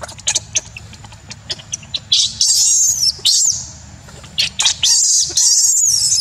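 Infant macaque screaming in high-pitched, wavering shrieks in two long bouts, the first about two seconds in and the second from about four and a half seconds on: the distress cry of a baby kept from nursing by its mother.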